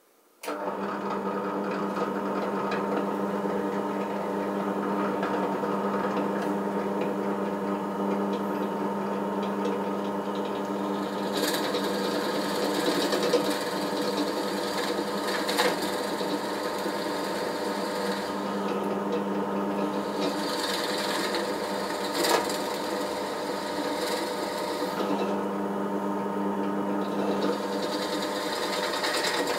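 SK11 SDP-300V 300 W benchtop drill press switched on about half a second in, its motor then running with a steady hum. Twice the bit is fed into a wooden board, adding the hiss of the bit cutting wood for several seconds each time.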